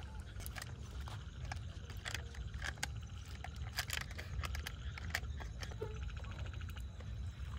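Light clinks and taps of a steel spoon and cups against a steel pot as milky tea is stirred and strained into cups, over a steady low rumble.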